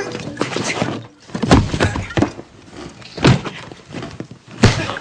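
A fistfight: irregular heavy thuds, blows and knocks, the strongest about a second and a half in, near three seconds in, and just before the end.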